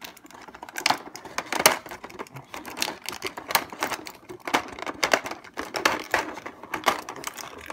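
Thin clear plastic blister tray crackling and clicking as small miniature pieces are pried out of it by hand: many sharp, irregular clicks and crinkles.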